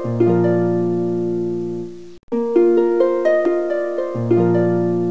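Background music: a short phrase of plucked notes rising in a broken chord, which cuts off about two seconds in and starts over.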